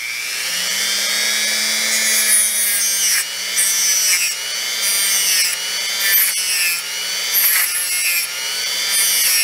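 Dremel rotary tool with a small wheel spinning up and running at a steady high whine, with a series of short grinding bursts as the wheel is pressed against a vacuum tube's pins to scour off corrosion.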